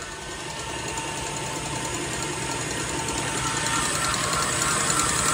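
Hand-pumped whipped cream maker being worked: a fast, steady mechanical whirring with rapid ratchet-like clicking from its gear mechanism, growing gradually louder.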